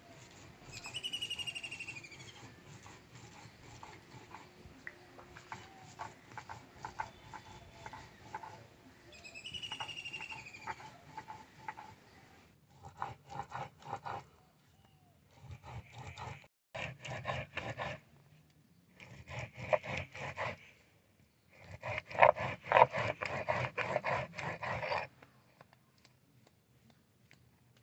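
An animal calls twice, each a short high call falling in pitch. Later come several bursts of rough scraping made of quick repeated strokes, the loudest near the end.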